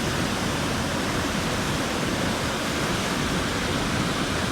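Vernal Fall's water crashing down in heavy spring flow: a steady, unbroken rush.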